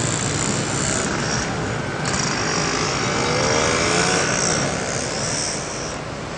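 Steady urban background noise, a broad rumble and hiss like traffic, with faint high whining tones and a faint rising whine in the middle.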